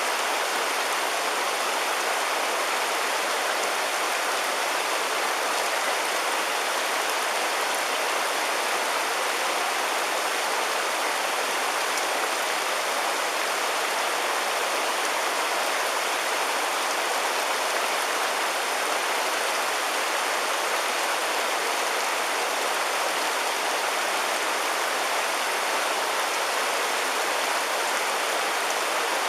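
River water rushing in a steady, even stream.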